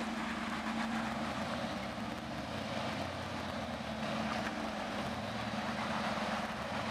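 Off-road rock crawler's engine running steadily without revving as the vehicle crawls slowly over wet rocks in a creek bed.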